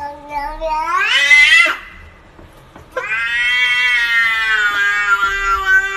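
Domestic cat giving two long, drawn-out meows. The first rises in pitch near its end and breaks off; the second starts about three seconds in and is held nearly level for about three seconds.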